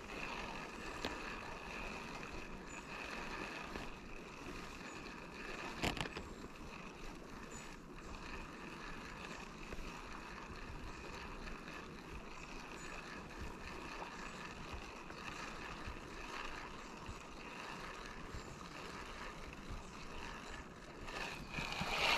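River water flowing steadily around a wading angler, with one short knock about six seconds in.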